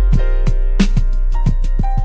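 Background music with a steady drum beat over held notes.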